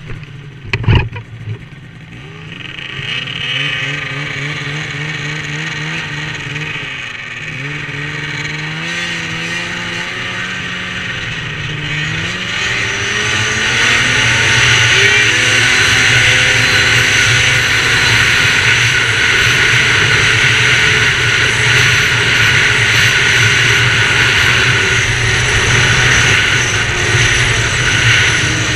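Ski-Doo snowmobile's two-stroke engine accelerating hard, its note climbing unevenly and then held loud and steady at high revs from about halfway, with rushing wind over it. A sharp knock about a second in.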